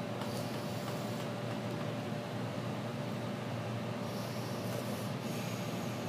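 Steady hum of a running LG microwave oven.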